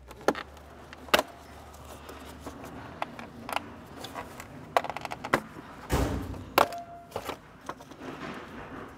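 Mercedes M156 AMG V8 engine beauty cover being pried up and worked loose from its mounts: several sharp clicks and knocks, with a duller thump about six seconds in.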